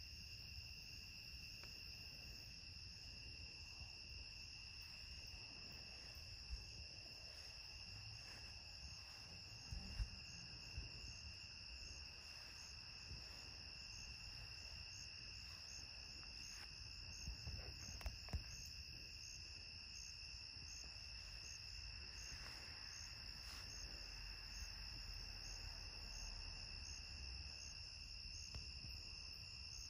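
Night chorus of crickets trilling steadily and continuously at a high pitch. A few brief knocks stand out over it about ten seconds in and again around seventeen to eighteen seconds in.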